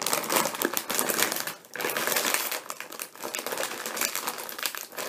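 Plastic bag of tortilla chips crinkling and crackling as it is handled and pulled at to open it, with a short pause about a second and a half in.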